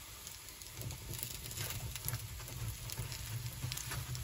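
Udon and green-onion pancake frying in a pan, a soft steady sizzle made of many small crackles, with a low steady hum underneath from about a second in.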